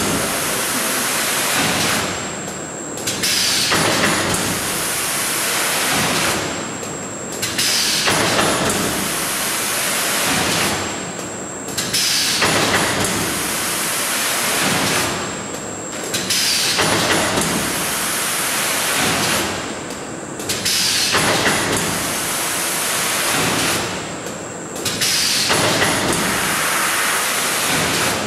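Vertical form-fill-seal bagging machine with an auger filler running through its packing cycle. A loud rushing noise is followed by a brief lull about every four and a half seconds, one lull per bag. A faint steady high whine sounds under it.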